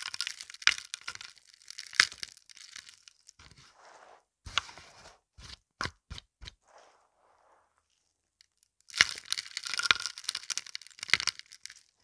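A pile of small seashells, pebbles and beads on carpet crunching and crackling as it is raked and pressed through. It comes in two dense spells, with a few scattered cracks and a short lull between.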